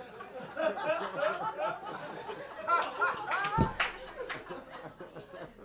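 Comedy-club audience laughing, many voices chuckling and laughing together, with a couple of sharp clicks about four seconds in.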